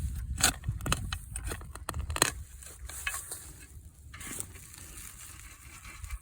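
Dry soil and leaf litter being scraped and sprinkled over a bedded foothold trap to cover it: a run of crunches and crackles for the first couple of seconds, then softer rustling.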